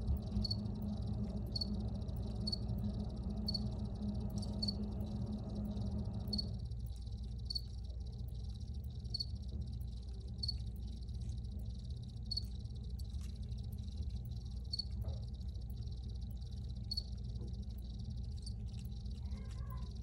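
Crickets chirping, short high-pitched chirps about once a second, over a steady low rumble. A lower background hum underneath stops about six seconds in.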